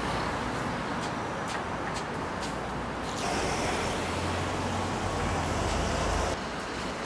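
Road traffic on a city street. About three seconds in, a vehicle passes close by: its engine rumble and tyre noise grow louder for about three seconds, then drop off suddenly.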